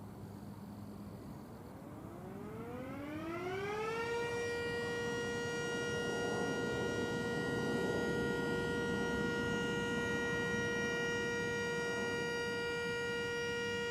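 Mini Sterling M siren winding up from a low pitch to full speed in about two seconds, then holding a steady tone, heard from a couple hundred feet away.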